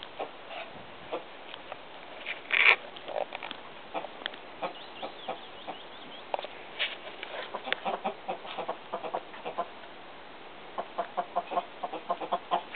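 Domestic hens and a rooster clucking in short, scattered clucks, with one louder call about two and a half seconds in and a quick run of clucks near the end.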